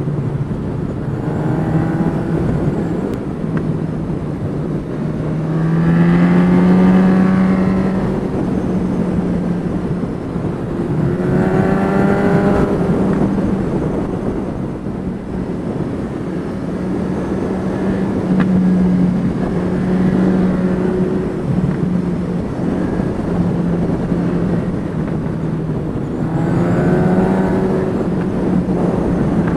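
Honda CB1000R inline-four motorcycle engine running under way, its note climbing several times as the throttle is rolled on out of bends, under a steady rush of wind over a helmet-mounted camera.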